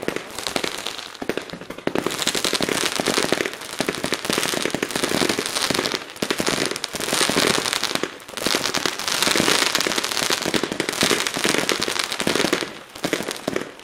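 Fireworks going off in rapid succession: a dense run of bangs and crackles, with a few short lulls.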